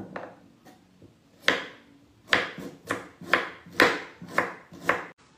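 Kitchen knife chopping garlic cloves on a cutting board: about a dozen sharp knocks, sparse at first and then a quicker run of chops from about two seconds in.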